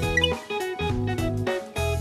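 Background music: plucked guitar notes over a bass line, in a steady rhythm.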